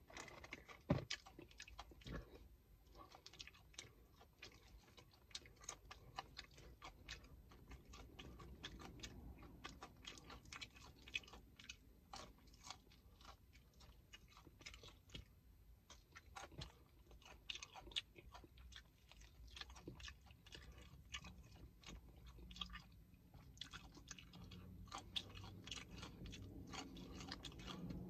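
Chewing and biting fried chicken close to the microphone: a steady run of small crisp crunches and wet mouth clicks, with a couple of sharper cracks in the first two seconds.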